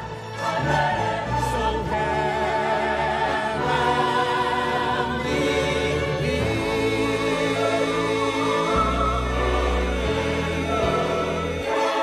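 Orchestral film score with a choir singing long held notes with vibrato, building to a swelling finale with a deep bass note about nine seconds in.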